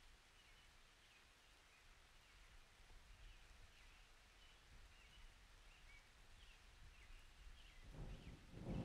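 Faint bird chirps over a soft low rumble. About eight seconds in, a roll of thunder begins and grows louder.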